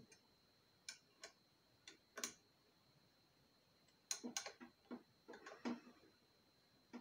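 Faint, irregular clicks and taps of metal tools against metal compressor parts during hand reassembly and tightening: a few single ticks, then a quicker cluster of clicks about four seconds in.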